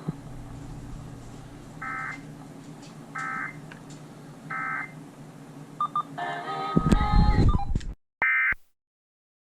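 NOAA Weather Radio sending the EAS end-of-message signal: three short, identical buzzy data bursts about a second and a half apart, over a low steady hum, closing the flood warning. A louder jumble of noise and tones follows about seven seconds in, then one more short burst, and the audio cuts off.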